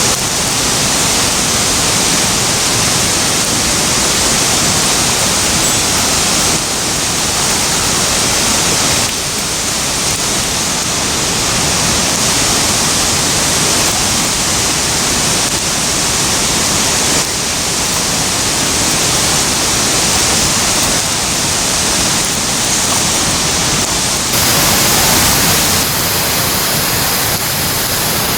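Loud steady rush of a fast-flowing mountain stream, its level shifting slightly in small steps a few times.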